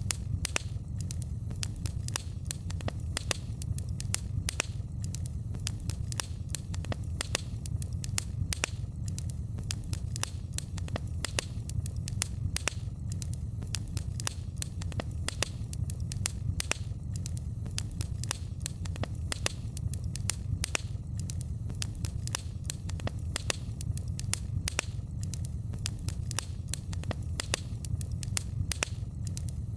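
Wood fire in a fireplace crackling, with frequent sharp irregular pops over a steady low rumble of the flames.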